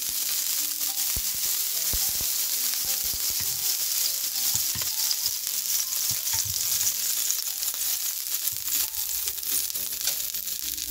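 Water sprinkled on a hot dosa pan (tawa), sizzling with a steady hiss and many small crackles as the droplets boil off. This is the sign that the pan is hot enough for the batter.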